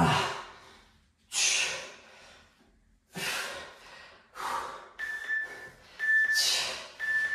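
A man breathing hard with heavy, gasping exhalations about once a second, out of breath from exertion near the end of a set of kettlebell lunges. Near the end, three short high beeps about a second apart from an interval timer count down the end of the work period.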